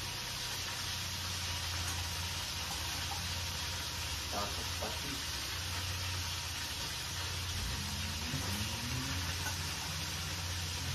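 Chicken frying in oil in a pot, a steady sizzle, over a low steady hum.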